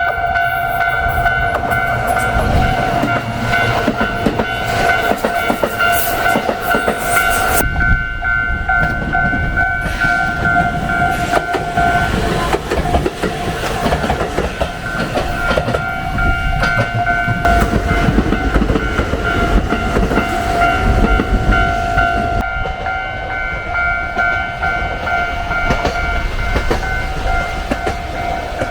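Level-crossing warning bells ringing steadily while a train runs across the crossing with rumbling, clattering wheels.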